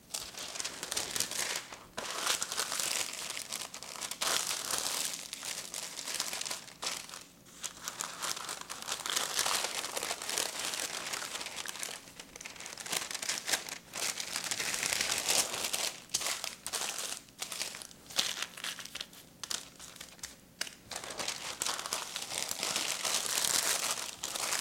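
Parchment paper crinkling as it is rolled and pressed around a log of cookie dough, in stretches of handling broken by short pauses.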